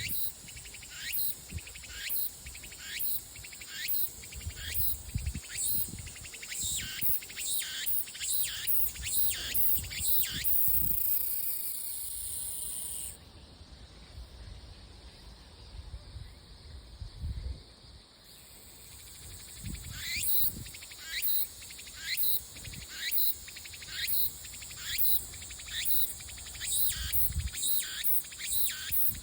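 Cicada singing: a rapid series of repeated downward-sweeping calls, about two a second, over a steady high whine. The song breaks off about 13 seconds in and starts again about 20 seconds in.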